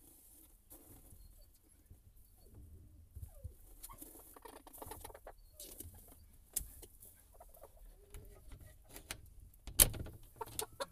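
Olandsk dwarf chickens clucking softly close by, with small clicks and rustles of pecking and scratching in the wood-shaving litter. There is a loud knock near the end.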